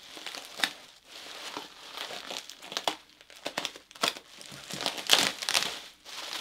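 Plastic bubble wrap crinkling and rustling in irregular bursts as it is pulled at and cut open by hand.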